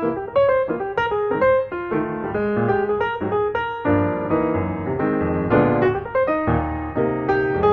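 Background piano music, a melody of quick successive notes over lower chords.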